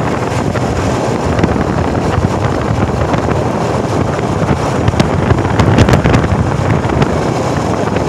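A motorcycle riding along a road, with wind rushing and buffeting over the microphone on top of the engine running. The gusts are strongest about five to six seconds in.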